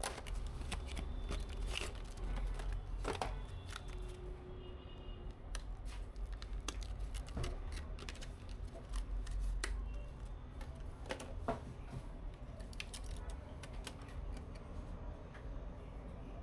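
Hands handling computer parts and packaging: irregular clicks, taps and rustles over a low steady hum.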